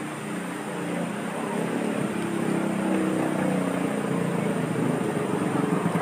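A motor vehicle's engine running steadily, getting louder over the first two or three seconds.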